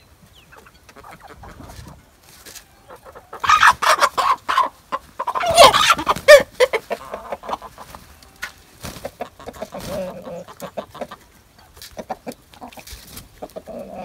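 A flock of hens and roosters clucking, with a run of loud calls from about three and a half to six and a half seconds in, the last a long call that falls in pitch. Quieter, lower clucks follow near the end.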